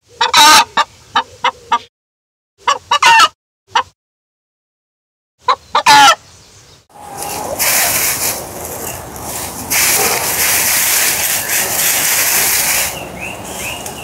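A hen clucking: loud bursts of short, pitched calls through the first six seconds. From about seven seconds in, a steady rustling hiss of outdoor noise takes over.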